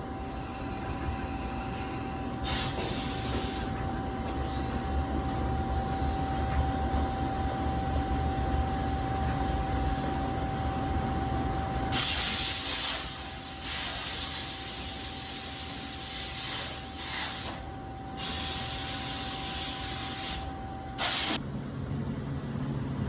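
CNC lathe running with a steady whine, with loud hissing spray from about halfway through that cuts in and out several times before stopping near the end.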